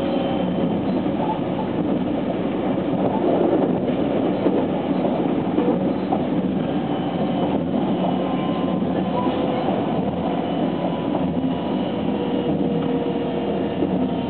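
Running sound heard inside a JR West 287 series electric train at speed: a steady rumble of wheels on rail, with faint steady whine tones from its Toyo IGBT VVVF traction inverter.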